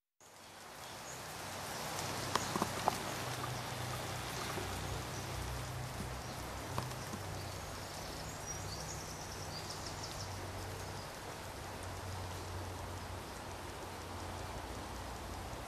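Meltwater from a thick layer of hailstones running and dripping, a steady even hiss that fades in at the start with a low hum beneath it, and a few sharp clicks between two and three seconds in.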